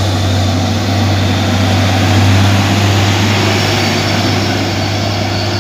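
Hino cargo truck's diesel engine running steadily as the truck drives close past, a deep, even engine drone.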